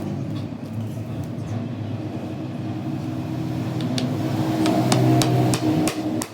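A machine running with a steady pitched hum that grows louder toward the end, with a few sharp metal taps in the second half.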